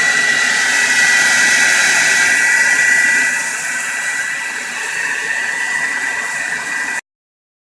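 Hand-held blow dryer running: a steady loud rush of air with a steady high whine. It drops slightly in level about three seconds in and cuts off abruptly near the end.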